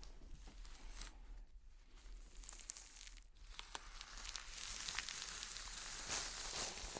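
Deer hide being pulled off the carcass: a long, drawn-out tearing with many small crackles as the skin parts from the meat, getting louder in the second half.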